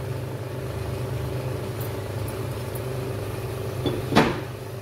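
Wooden spatula working in a non-stick frying pan of chicken and vegetables, with one sharp knock against the pan about four seconds in, over a steady low hum.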